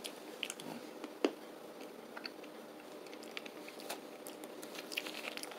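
Faint mouth sounds of a hard Ice Breakers Duo mint being sucked and moved around in the mouth, with scattered small clicks as it knocks against the teeth, the loudest about a second in.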